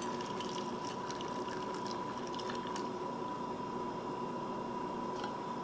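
Hot vinegar brine being poured from a saucepan into a pint jar packed with zucchini slices, a steady pour filling the jar to the top.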